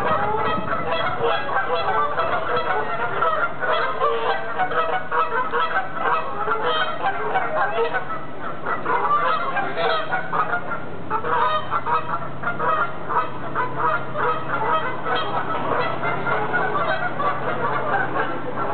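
Canada geese honking continuously, a rapid run of short, overlapping calls.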